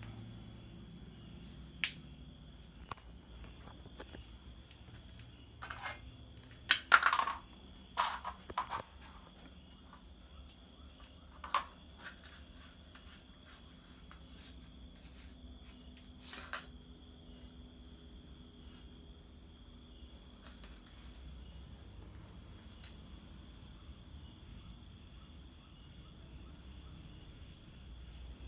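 Insects chirring steadily in a high, even drone. Over it come a few light knocks and clatters of a plastic cup batted across a concrete floor by cats; the loudest cluster is about 7 to 9 seconds in.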